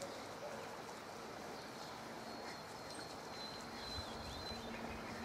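Quiet outdoor background with faint, distant bird chirps and a thin high whistle through the middle.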